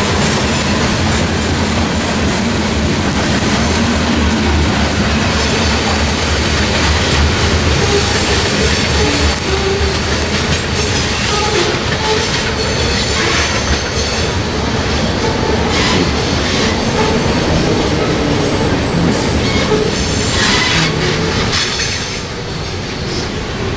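Freight train of covered hopper cars rolling past, a steady rumble and clatter of wheels on rail. Thin, high wheel squeals come and go over it. The sound eases a little near the end.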